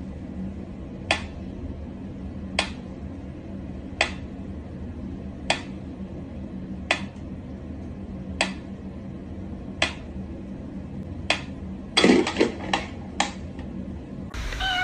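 Mechanical pendulum metronome ticking slowly, one sharp tick about every second and a half. About twelve seconds in comes a quick run of louder knocks and clicks.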